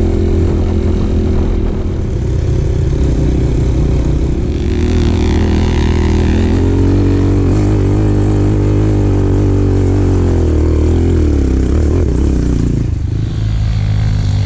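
Enduro motorcycle engine running under way, its pitch rising and falling with the throttle and dropping briefly near the end.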